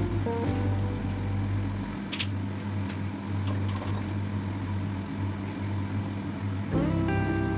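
Steady low hum with a few faint clicks in the middle; background music comes in near the end.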